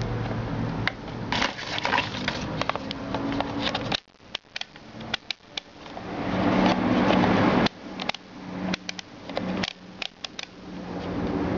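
Close handling sounds of a plastic digital multimeter and its test leads, mostly rubbing with scattered sharp clicks. In the second half comes a run of light clicks as the rotary selector dial is turned.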